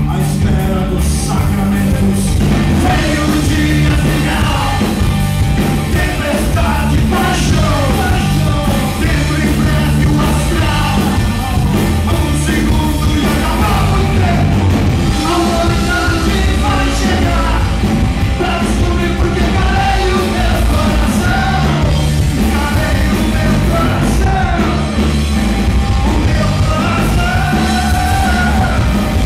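Live rock band playing loudly: a male vocalist singing over electric guitar, bass guitar and a drum kit.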